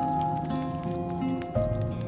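Music of held chords that change about every second, with the scattered sharp crackles and pops of a burning log fire.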